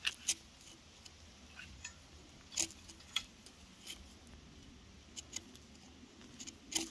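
Digging tools striking roots and stones in the soil while clearing stumps: scattered sharp clicks and knocks at uneven intervals, faint overall.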